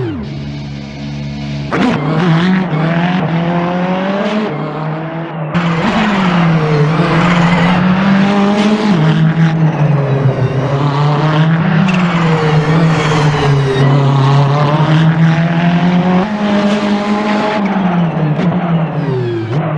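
Ferrari 488 GT3's twin-turbo V8 race engine under load, its revs rising and dropping again and again as it accelerates, shifts and lifts between corners, with the pitch falling away near the end.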